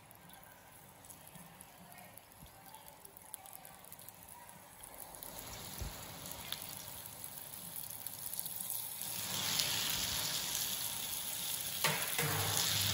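Marinated pomfret pieces sizzling on a hot grill pan as they are laid down. The sizzle starts faint, grows from about halfway through, and is loudest near the end, with a single knock shortly before it ends.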